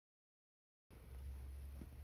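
Near silence: about a second of dead silence, then a faint low background rumble with a faint tick near the end.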